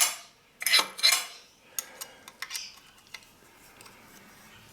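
Light metal parts clinking and clattering: a few sharp clatters in the first second and a half, then scattered small ticks.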